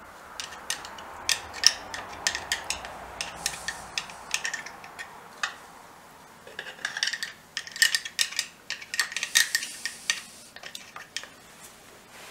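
Light metallic clicks and clinks of motorcycle gearbox parts being handled and oiled, scattered irregularly and busiest in the second half. A soft hiss runs under the first few seconds.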